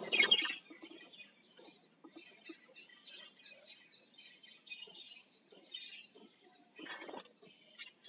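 Budgerigars chirping: short high chirps in an even series of about two a second, crowded and overlapping near the start.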